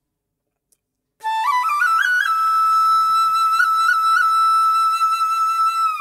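Silence, then about a second in, slow background music begins on a flute, climbing a few notes and settling on one long held note with small ornaments.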